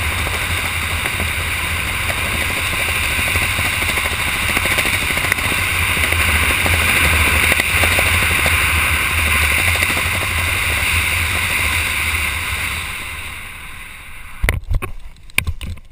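Wind rushing over a skydiver's camera microphone during a canopy descent, a steady noise that fades away over the last couple of seconds as the canopy slows for landing. Near the end come a few sharp knocks and rustles.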